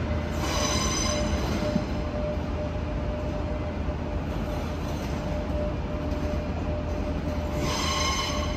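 Renfe R2 commuter electric train rolling slowly into the terminus, with a steady low rumble and a steady hum. High-pitched squeals sound twice, about half a second in and again near the end.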